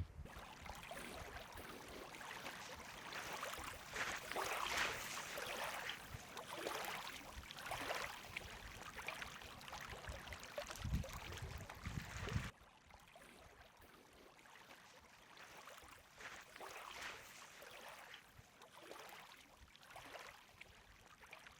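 Faint outdoor rushing noise with irregular crackles, like running water or wind, dropping suddenly to a quieter level about twelve seconds in.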